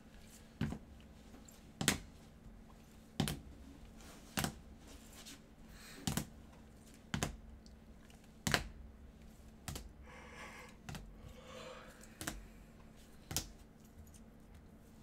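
Hard plastic card cases clicking down one after another onto a stack, about a dozen sharp clacks roughly a second apart, with a short rustle of handling between them about two-thirds of the way through.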